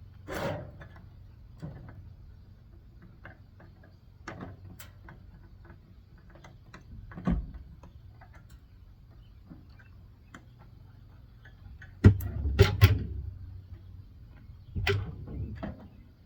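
Scattered clicks and knocks of metal parts and hand tools being handled during an appliance teardown, with a louder clatter about twelve seconds in and another a few seconds later.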